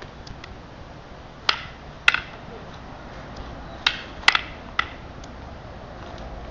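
Rattan arnis sticks clacking together in a close-range sparring drill: sharp wooden knocks, one about a second and a half in, a quick double just after two seconds, then a run of four between about four and five seconds.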